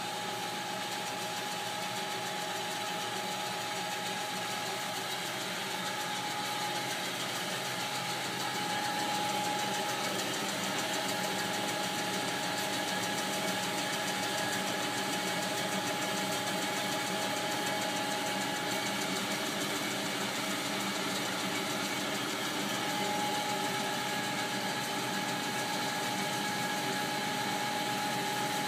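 Promach metal-cutting band saw running steadily as its head lowers, a constant mechanical drone of motor and blade drive with a steady tone through it.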